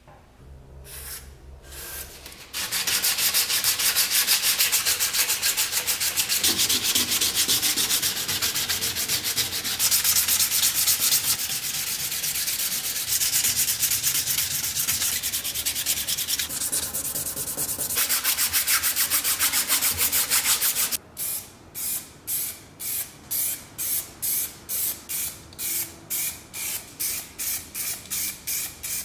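A metal lamp shade scrubbed by hand with an abrasive sanding pad: fast, steady rubbing strokes. Near the end it changes to slower short strokes, about two a second.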